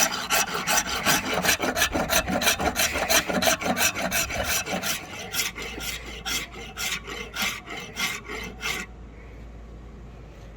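Hand file strokes, quick and even at about four a second, rasping across a workpiece; the filing stops about nine seconds in, leaving a faint low hum.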